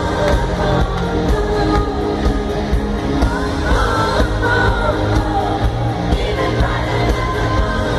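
Live pop music in an arena: a woman singing lead over a steady beat through the PA, with the hall's echo.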